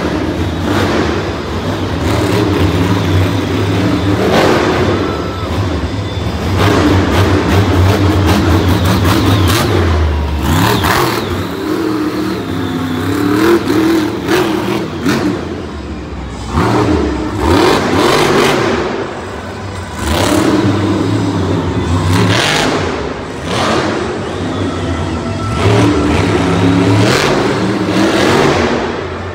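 El Toro Loco monster truck's supercharged V8 engine revving hard in repeated surges, its pitch climbing and dropping as the throttle is opened and eased.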